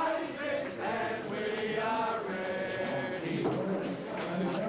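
A rugby league team's players and officials chanting and shouting together in a crowded dressing room, many men's voices at once with no break.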